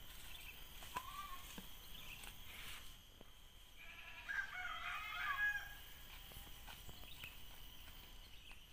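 A rooster crows once, starting about four seconds in and lasting nearly two seconds, with a few faint knocks around it.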